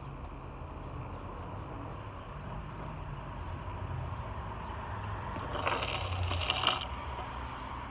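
Steady low background rumble, with a brief scraping rattle a little under six seconds in that lasts about a second.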